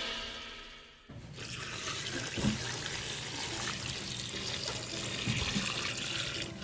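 Water pouring in a steady stream from a clear container onto flour and margarine in a stainless steel mixing bowl, the liquid being added to bread dough. The pour starts about a second in, just as background music fades out.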